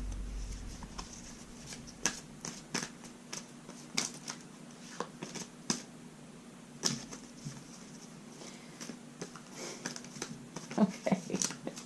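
A deck of oracle cards being shuffled and handled by hand: scattered soft clicks and flicks of card stock, a little busier near the end.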